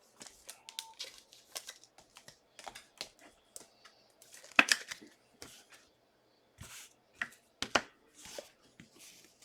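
2022 Contenders football trading cards and their packs being handled: scattered soft clicks, flicks and short rustles of cards sliding against each other and against wrappers. The two loudest snaps come about four and a half and seven and a half seconds in.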